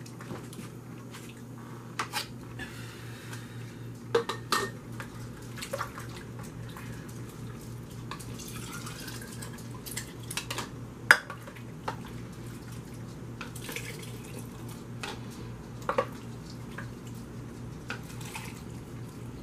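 Plastic scoop knocking and scraping in a slow cooker crock and against a plastic canning funnel and glass jar, with soup splashing into the jar. Scattered light clicks, one sharper knock a little past halfway, over a steady low hum.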